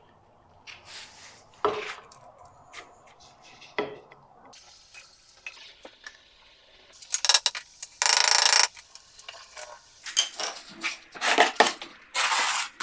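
Metal tool scraping and clinking in cement mortar while the first row of aerated-concrete blocks is laid. A few light knocks come at first, then a run of loud scrapes in the second half.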